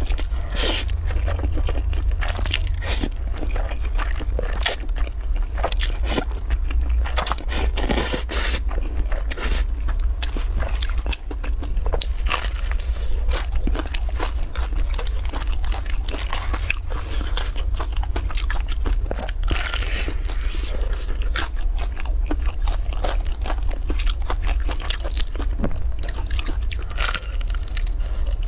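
Close-miked eating: bites and chewing of crisp fried flatbread and noodles, with many short crunches. A steady low hum runs underneath.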